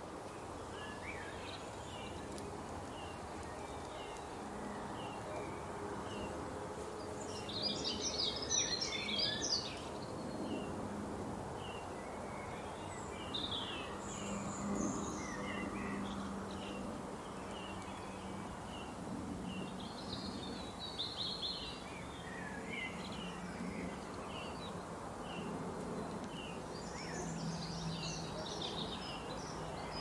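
Wild songbirds calling over a steady background hiss: short high chirps repeat all the way through, broken several times by louder bursts of rapid twittering song, the loudest about a third of the way in.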